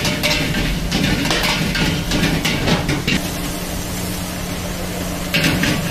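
A metal ladle scraping and clanking against a steel wok as fried rice is stirred over a roaring gas burner. About three seconds in, the stirring stops, leaving the burner's steady roar and a low hum. The clatter starts again near the end.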